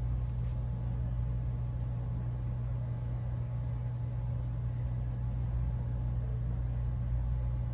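Steady low mechanical hum of background room noise, unchanging throughout.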